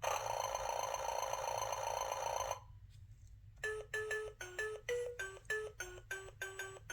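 Electronic sound chip of a children's button sound book: a steady buzzing tone for about two and a half seconds, then, after a short pause, a quick tune of short beeping notes.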